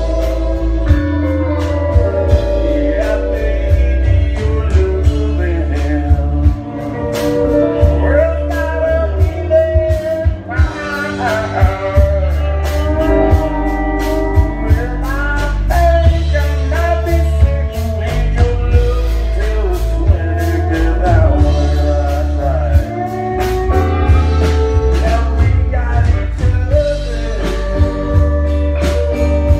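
Country band playing live and loud through the PA: drums keeping a steady beat, electric bass, guitar, and a singer's voice.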